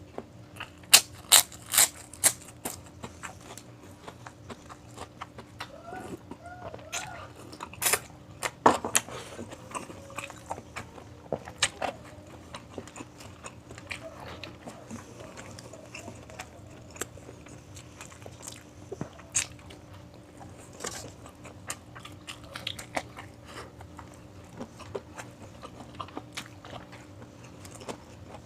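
Close-miked eating: crunchy bites and chewing of crispy fried food, with sharp crackly crunches. The crunches are loudest in the first few seconds and again about eight seconds in, over a faint steady hum.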